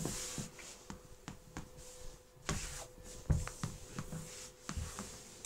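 Scattered soft taps and knocks with bits of rustling, a toy doll being moved about on a wooden floor and handled close to the microphone, over a faint steady hum.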